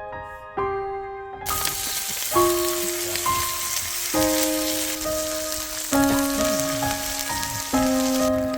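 Background piano music: slow chords struck every second or two over a falling bass line. About a second and a half in, a steady hiss joins it and cuts off abruptly near the end.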